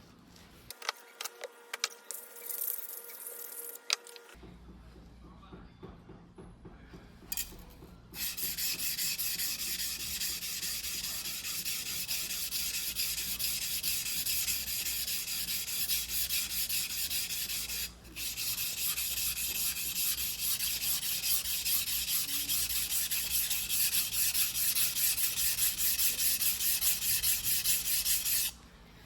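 Steel yanagiba blade being ground by hand on a whetstone, long back-and-forth scraping strokes that start about eight seconds in and run on with one short pause. In the first seconds there are a few sharp clicks and a short tone.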